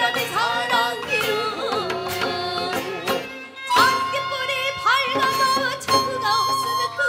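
Korean folk song performed live: a singer with vibrato and sliding pitch over a small traditional ensemble of bamboo flute, zither and drum, with the drum striking about once a second.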